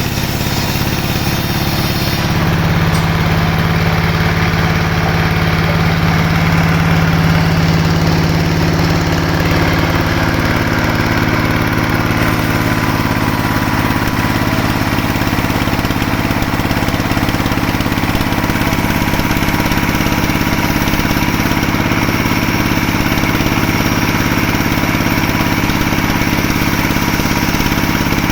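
Sawmill machinery engine running steadily, its pitch settling onto a stronger low hum about two seconds in.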